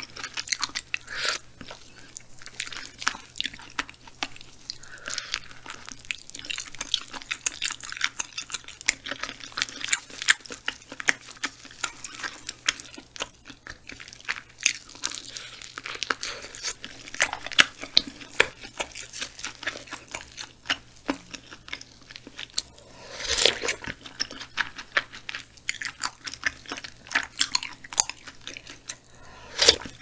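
Close-miked chewing and biting of tender boiled frog meat from a clear frog soup, with many small wet mouth clicks and smacks and a few louder mouth noises.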